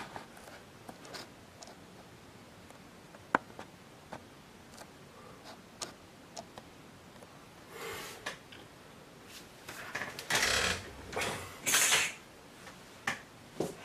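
Handling noise: scattered faint clicks and one sharp tick, then several louder bursts of rustling and shuffling near the end.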